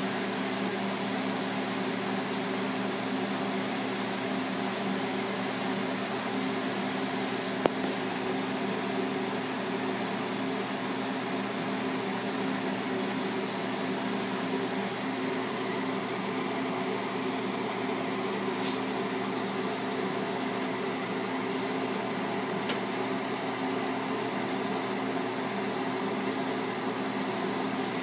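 Lampworking torch burning with a steady hiss, over a steady low mechanical hum; a single sharp click about eight seconds in.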